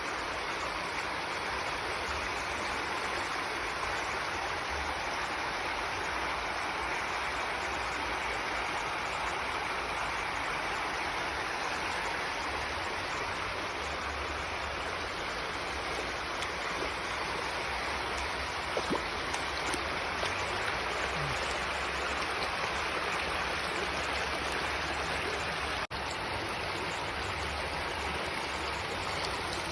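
Floodwater rushing past in a steady, unbroken torrent.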